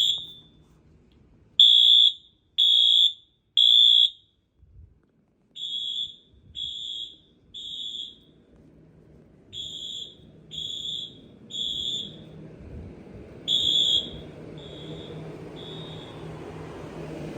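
Fire alarm horn-strobes sounding the temporal-3 evacuation signal: groups of three short, high-pitched beeps with a longer pause between groups, four groups in all. The last two beeps of the final group are fainter, and a low steady hum rises underneath in the second half.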